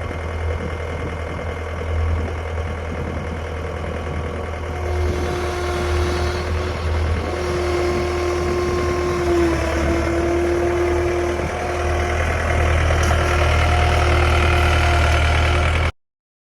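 John Deere skid steer's diesel engine running, getting louder about five seconds in and again near the end, with a steady whine joining in as it works. The sound cuts off abruptly just before the end.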